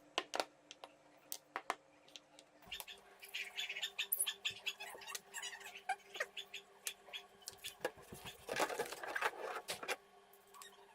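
Small metal clicks and taps, then a long stretch of dense scratching and crackling, loudest near the end, from the parts of a cast-iron hand meat grinder being handled and worked.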